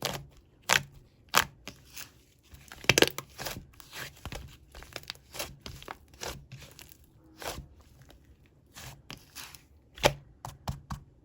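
Fluffy slime being squished and pressed by hand, giving irregular sticky pops and crackles, with the loudest pops about three seconds in and near ten seconds.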